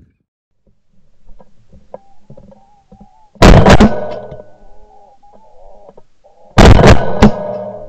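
Two shotgun shots about three seconds apart, recorded right at the gun by a barrel-mounted ShotKam camera: each a very loud blast with a short ringing tail.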